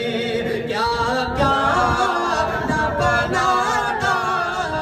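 Male voices singing a Sufi devotional kalam, a lower voice joined about a second in by a higher, gliding line.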